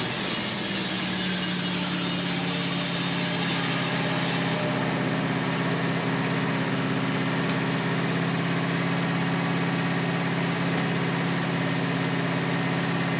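Wood-Mizer LT15 band sawmill's engine running steadily while the band blade cuts through a hard maple log. The high-pitched hiss of the blade in the wood falls away sharply about four to five seconds in, leaving the engine's steady hum.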